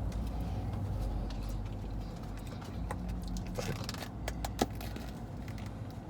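A steady low rumble with a few light clicks and scrapes, as of plastic food containers and utensils being handled while eating.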